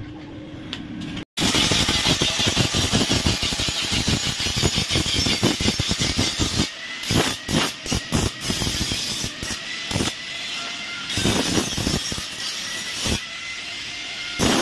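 Handheld angle grinder grinding down the weld joints of a square steel-tube stool frame: a harsh grinding rasp over a high motor whine. It starts abruptly a little over a second in and breaks off briefly several times as the disc comes off the metal.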